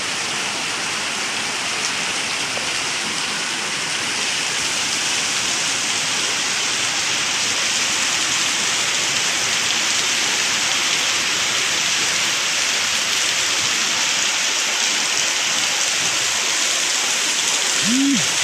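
Steady rain falling, an even hiss with no break. Near the end come two short, low, rising-and-falling sounds.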